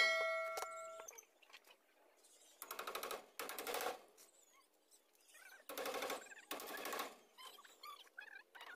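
A short chime with clicks from a subscribe-button animation at the start. Then four rasping strokes, in two pairs, of a bolo blade worked against bamboo.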